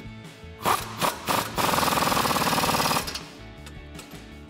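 Pneumatic impact wrench driving the nuts tight on the strut-to-steering-knuckle bolts. It gives two short blips, then a steady rapid hammering for about a second and a half before it stops.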